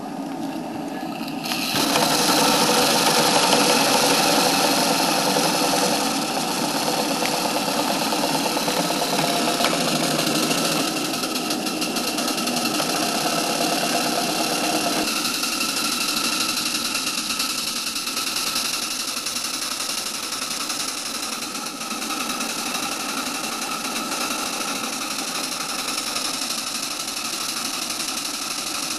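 Ride-on 1-inch-scale live steam model of a Burrell single-cylinder traction engine running, a steady mechanical sound over a loud hiss that jumps louder about two seconds in.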